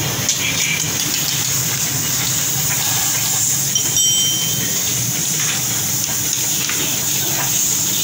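Water jet spraying onto a soap-covered motorcycle, a steady hiss, over the steady low hum of a running motor.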